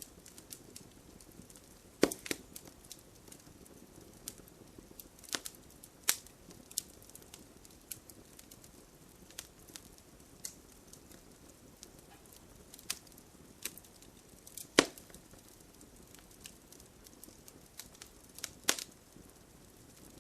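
Wood fire crackling in a fireplace: scattered sharp pops and snaps over a soft steady hiss. The loudest pops come about two seconds in and again about three-quarters of the way through.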